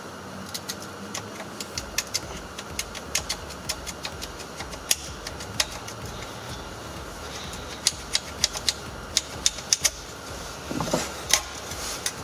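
Irregular sharp metallic clicks and taps as the metal retaining clips on a car audio amplifier's steel mounting bracket are pushed and worked loose by hand. The clicks come more thickly near the end.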